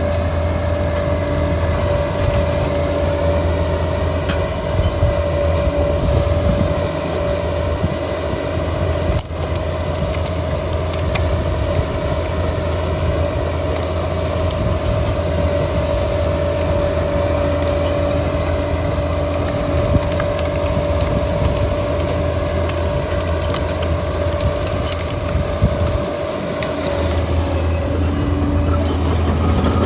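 Liebherr 746 crawler dozer at work: its engine runs steadily with a constant whine over a low drone, and scattered crunching and cracking, as of rock and wood being broken up, sounds throughout. The low drone dips briefly near the end.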